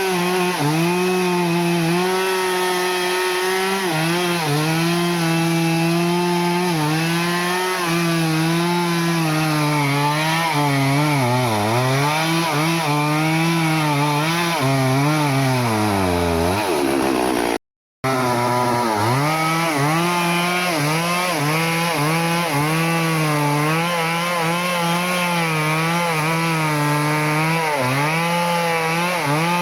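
Stihl two-stroke chainsaw running hard while cutting through teak wood, its engine pitch sagging and recovering again and again as the chain loads up in the cut, with two deeper bogs. The sound drops out completely for a moment just over halfway through, then the saw carries on.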